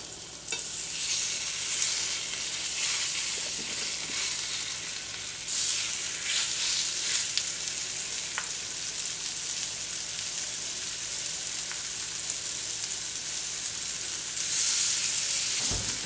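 Masala-coated prawns frying in hot oil on a flat cast-iron griddle: a steady sizzle that jumps louder about half a second in, around five seconds in and again near the end, as more prawns go into the pan.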